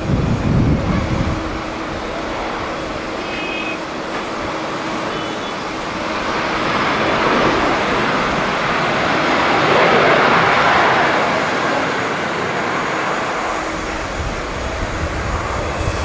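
Jet noise of a Boeing 767-300ER's twin engines at takeoff power as the airliner lifts off and climbs away, a broad rush that swells to its loudest about ten seconds in and then eases. Wind buffets the microphone at the start.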